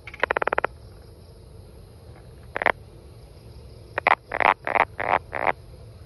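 Tree frog calling: a fast rattle of about eight clicks near the start, one short note around the middle, then a run of five or six short croaking notes near the end.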